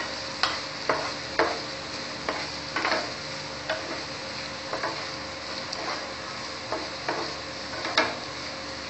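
A spatula stirring and scraping pointed gourd pieces through a thick masala in a nonstick frying pan, over a steady low sizzle; irregular scrapes and taps of the spatula against the pan, the loudest a little before the end. The masala is well fried down (kasha stage).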